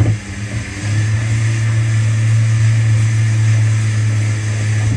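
Jet ski engine running at speed, a steady low drone, with wind and water spray rushing past. The drone dips briefly at the start and holds steady from about a second in.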